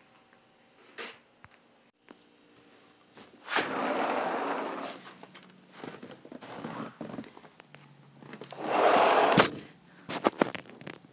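A sliding patio door rumbling along its track as it opens, then sliding shut again and stopping with a sharp knock, followed by a few light steps on snow.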